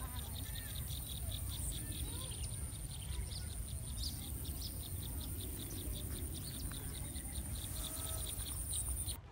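Insects chirping steadily: a continuous high-pitched whine with a regular chirp about four to five times a second, over a low outdoor rumble. The sound cuts off suddenly near the end.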